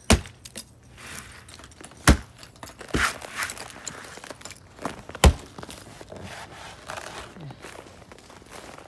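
Irregular walking footsteps with a crunching texture, broken by four sharp thumps; the loudest is about five seconds in.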